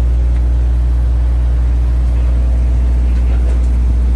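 An engine running steadily, a loud constant low drone with a thin high whine above it.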